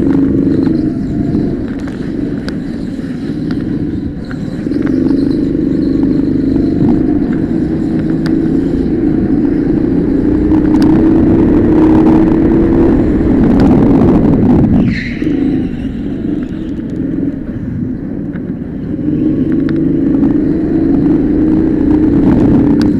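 Go-kart engine heard onboard, rising in pitch as the kart accelerates along the straights and dropping away as it slows for the corners. There is a short, high, falling squeal about fifteen seconds in.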